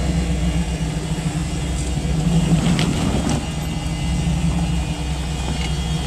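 Jeep CJ-6 engine running under load at low speed as the Jeep crawls up a steep rocky trail, a steady low note that swells slightly about two seconds in. A couple of brief clicks come near the middle.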